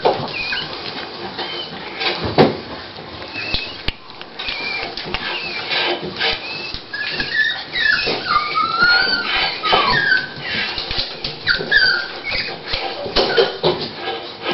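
Toy Pinscher bitch whining in many short, high-pitched whimpers while scratching and rustling at her blanket: the restless nesting of a dog at the start of labour.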